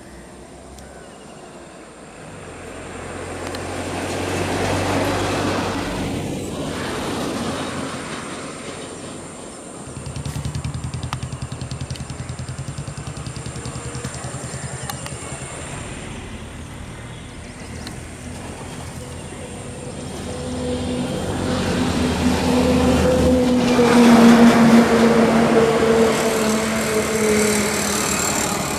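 Road traffic passing close by: engine and tyre noise swells and fades several times, with a steady low engine drone through the middle and a louder vehicle going past near the end, its engine pitch slowly falling.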